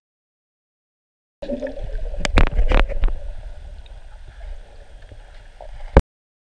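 Muffled water sloshing and rumbling, as heard by a camera underwater. It starts suddenly about a second and a half in, has several sharp knocks soon after, and ends in a click shortly before the end.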